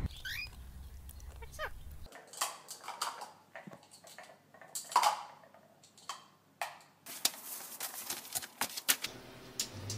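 Short squawks and calls from pet parrots, mixed with scattered knocks and clatter. The loudest call comes about halfway through.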